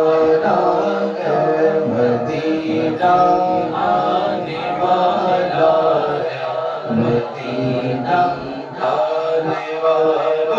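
Two men singing an Urdu naat, a devotional chant in praise of the Prophet, into microphones with long held, melismatic notes and no instruments.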